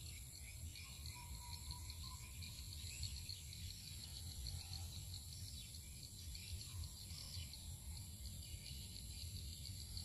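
Faint outdoor ambience: insects chirping steadily in a high, pulsing chorus over a low rumble.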